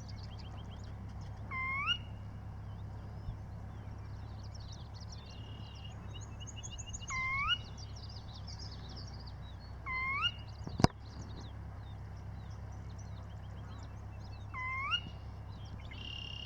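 Mixed birdsong chorus in a wetland: many small birds chirping and trilling high, while one bird repeats a short, rising call four times, a few seconds apart. A single sharp click about eleven seconds in, over a steady low hum.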